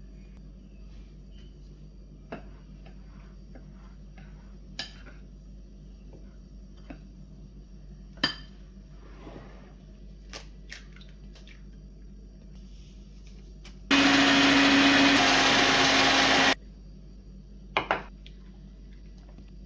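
Kitchen blender motor running for about two and a half seconds, a loud steady whirr that starts and stops abruptly, mixing the biscuit ingredients. Light clicks and knocks come before it, and two sharp clicks follow soon after.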